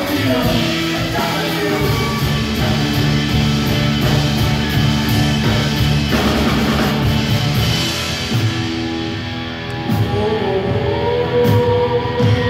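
Live rock band playing: acoustic and electric guitars, bass and drums, with a woman singing. The cymbal wash drops away about two-thirds of the way through.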